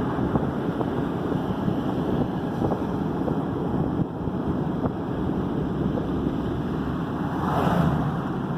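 Steady road noise heard inside a moving car: tyres rolling on a snowy road along with the engine, swelling into a louder whoosh near the end.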